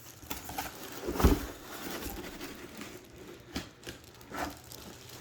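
A cardboard shipping box and its packing being handled: scattered rustles and light knocks, with one heavy thump about a second in.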